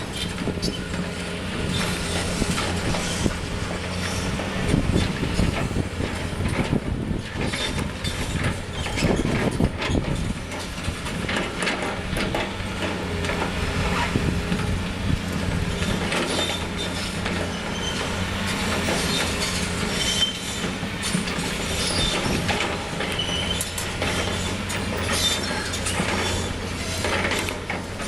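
CAT 330C long-front excavator working: its diesel engine runs steadily under the steel bucket's repeated clanks and knocks, with short high metal squeaks in the second half.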